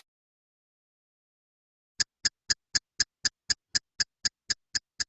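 Silence for about two seconds, then a clock-ticking sound effect: quick, even ticks, about four a second.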